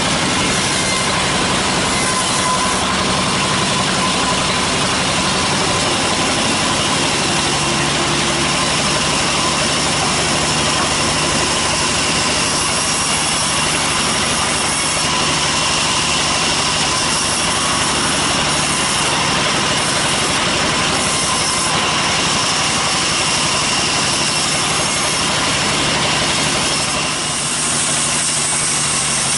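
Sawmill bandsaw and its drive engine running steadily as the blade rips lengthwise through a teak log: one continuous loud mechanical din with no breaks.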